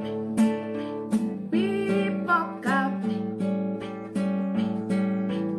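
Acoustic guitar strummed in a steady rhythm of chords, accompanying a woman singing a song.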